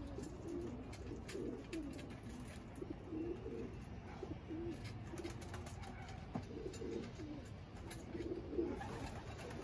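Racing pigeons cooing in their loft, a string of low, wavering coos following one another.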